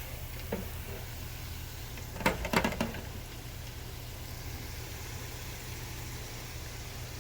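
Breaded rice balls deep-frying in hot oil, a faint steady sizzle over a low hum, with a quick cluster of knocks and clinks about two and a half seconds in.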